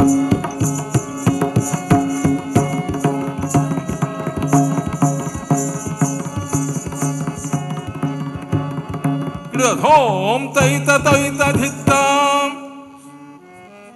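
Indian shadow-puppet theatre accompaniment: hand-drum strokes over a steady low drone, with a high jingling beat keeping time. About nine and a half seconds in, a wavering, ornamented melodic phrase comes in. The drumming stops about twelve seconds in and a held note fades away.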